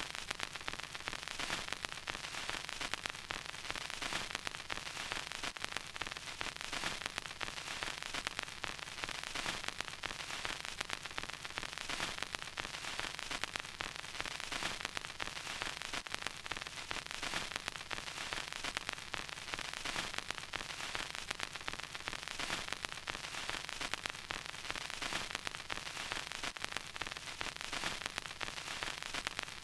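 Vinyl record crackle: a steady surface hiss full of dense small clicks and pops, with no music.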